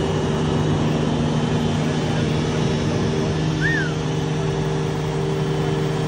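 A rough-terrain forklift's engine running steadily, its note shifting slightly a little past the middle, with one brief chirp just after.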